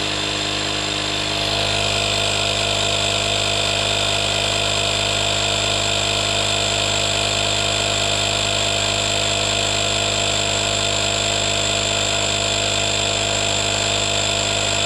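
Audew portable tire inflator's electric air compressor running steadily, a continuous motor-and-piston drone with airy hiss as it pumps air. It gets louder about a second and a half in and then holds steady.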